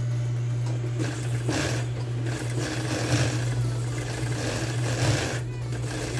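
Industrial sewing machine stitching through denim, its motor humming steadily underneath. The stitching starts about a second in and stops briefly near the end.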